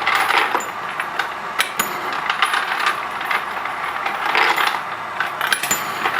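Brass rifle cartridge cases clinking and rattling together in the running Dillon case feeder and annealing machine: a steady metallic jingle with many small clicks, like coins, as the cases are fed, rotated and advanced through the annealing station.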